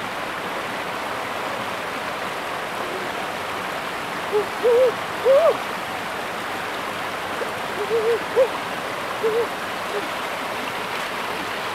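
Shallow rocky stream running and splashing steadily over stones. Between about four and ten seconds in come several short, low pitched calls, some in quick pairs and threes, louder than the water.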